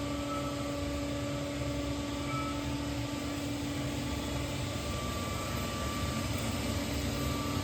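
Berg & Schmid GBS305 VA-I CNC automatic miter band saw running: a steady machine hum with a constant low tone over an even rushing noise.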